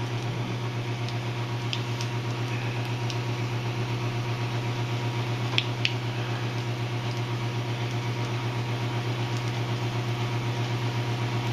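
Kalamazoo 1x42 belt grinder running steadily with a leather honing belt loaded with diamond paste, an even motor hum, with two faint ticks about six seconds in.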